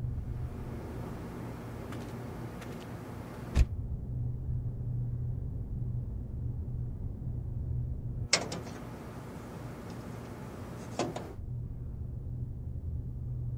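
Car door heard from inside the cabin: outside hiss comes in while it stands open and is cut off when the door shuts with a thud about three and a half seconds in. About eight seconds in a click lets the hiss back in, and it is shut off again with another thud about three seconds later. A steady low hum runs underneath.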